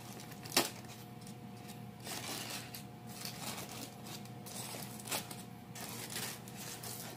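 Faint rustling and crinkling as a Jiffy Pop foil pan and its popped popcorn are handled, with a sharp click about half a second in.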